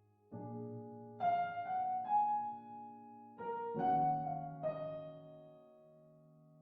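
Intro music on piano or keyboard: a few slow chords struck one after another, the last one fading away near the end.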